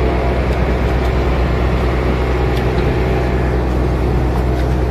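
Fishing trawler's engine running steadily, a constant low drone heard on deck.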